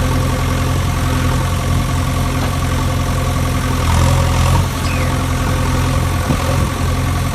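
A vehicle engine idling steadily, a low even hum that swells slightly about four seconds in.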